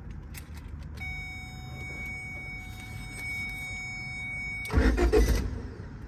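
The 2004 Honda Civic's electrical system powered up through a jumper wire at the ignition switch connector: a steady high whine comes on about a second in, then the starter cranks briefly and loudly near the end.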